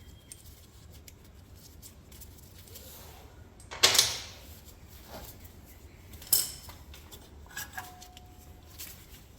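Metal hand tools (wrench, socket) clinking and clanking against metal parts. There are three sharp clanks a couple of seconds apart, and the third leaves a short ringing tone.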